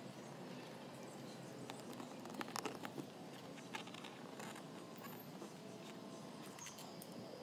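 Faint rustling and a few light clicks from hands squeezing a tube of silicone sealant and working it along a plastic siding mounting block.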